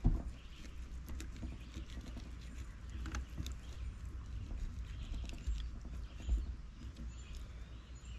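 Knife cutting and scraping through a catfish on a wooden board: scattered small scratchy crackles and clicks, with a thump right at the start and another about six seconds in, over a low steady rumble.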